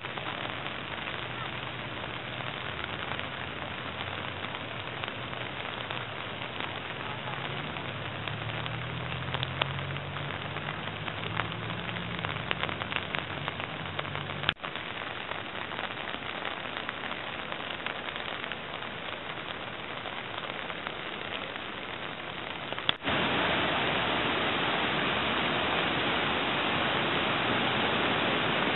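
Steady rushing noise of fast-moving floodwater. Near the end it jumps suddenly to the louder, fuller rush of a swollen, fast-flowing creek.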